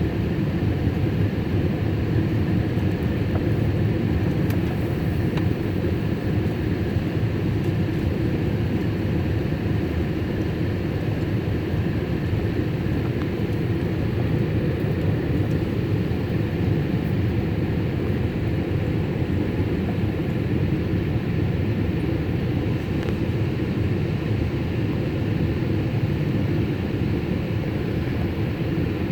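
Steady cabin noise of a Boeing 787 airliner in flight: an even engine and airflow rumble, strongest in the low range, with no change in level.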